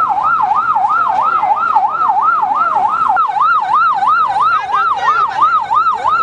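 Electronic vehicle siren in a fast yelp, its pitch rising and falling about three and a half times a second without a break.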